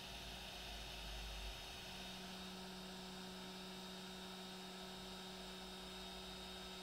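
Faint steady electrical hum with a few fixed tones in it; a low note in the hum grows a little stronger about two seconds in.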